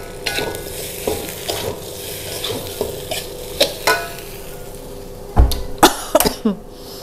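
Metal spatula scraping and clicking against a stainless-steel wok as jengkol and leeks are stir-fried over a steady sizzle. A louder thump and a couple of clanks come about five and a half seconds in.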